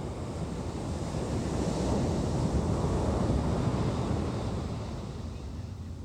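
Ocean surf on a sand beach: a wave breaks and washes in, swelling about two seconds in and fading near the end, with wind buffeting the microphone.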